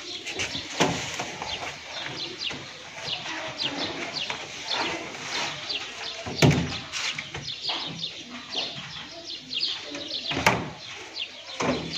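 Small birds chirping continually in quick, high, falling chirps. A few knocks from the wooden snake box as its lid and frame are handled, the loudest about six and a half and ten and a half seconds in.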